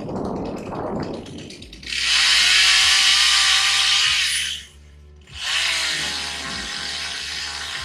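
Chainsaw running at full throttle in two bursts of about three seconds each, dropping off briefly between them and revving up again.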